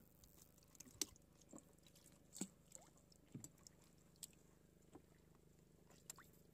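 Near silence, broken by about a dozen faint, irregular clicks and taps.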